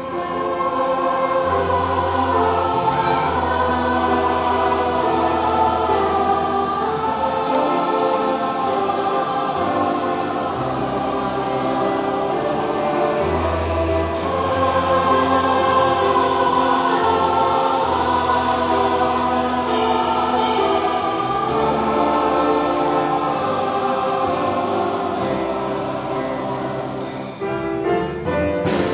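A choir singing in harmony, in long held chords with sustained low bass notes underneath; the singing begins in full about a second in and dips briefly near the end.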